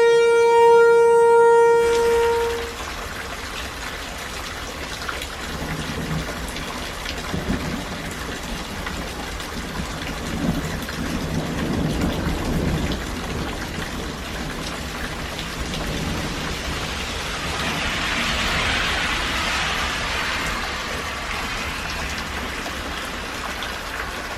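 An outdoor warning siren's steady tone cuts off about two seconds in, leaving steady rain with low rumbles of thunder. The rain swells louder for a couple of seconds near the end.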